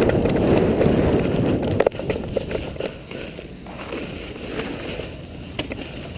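A person running across a dirt lot, with wind rumbling on the microphone. About two seconds in it eases off into quieter scuffs and occasional clicks as the runner settles into a crouch.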